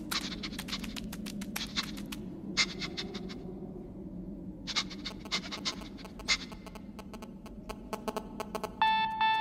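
Bursts of fast, dry clicking with short pauses over a low steady hum, then a mobile phone's electronic ringtone starts near the end as single beeping notes.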